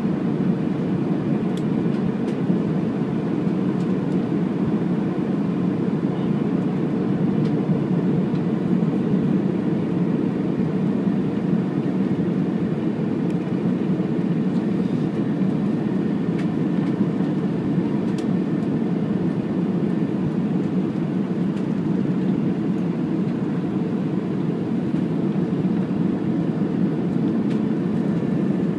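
Steady cabin roar of an Airbus A320 descending on approach: engine and airflow noise heard from inside the cabin over the wing, a low, even rumble with no change in level.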